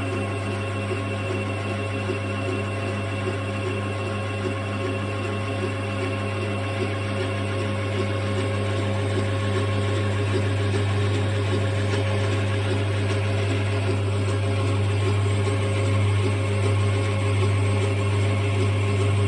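Emco Compact 8E metalworking lathe running under power: a steady motor hum with gear whine, a faint tick about once a second, growing slightly louder near the end.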